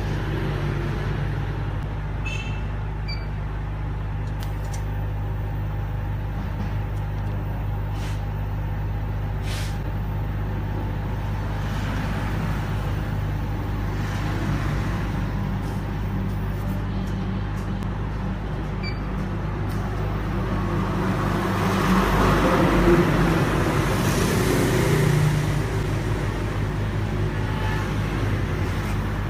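Steady low electrical hum of running machinery. A louder swell of noise rises and falls about three-quarters of the way through, with a few faint clicks.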